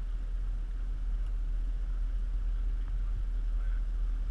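Boat engine running at low speed, a steady low rumble.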